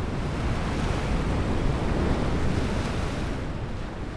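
Sound effect of a big ocean wave and gusting wind: a rushing noise that swells and then fades near the end.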